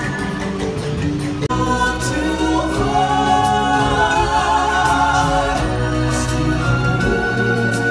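Music with a choir singing long, wavering notes over a steady instrumental backing. The music changes abruptly about a second and a half in.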